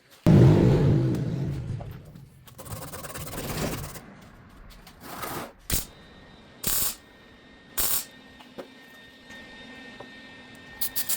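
Metal-working tool noise: a loud burst that fades over about two seconds, a second stretch of noise, then several short separate bursts and a few clicks near the end.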